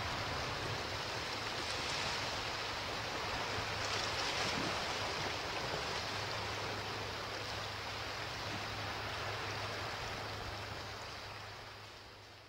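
A steady rush of water, fading out over the last couple of seconds.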